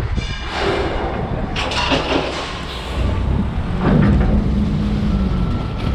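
Vehicle engine running with a steady low rumble, with a few knocks about a second and a half in.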